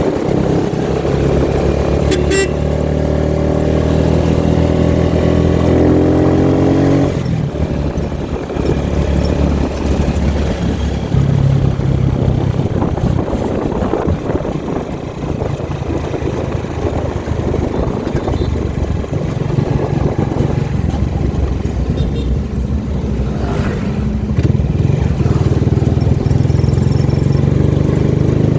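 A vehicle's engine running while on the move, with a steady engine note that is clearest for the first seven seconds. After that a rushing road and wind noise covers much of it.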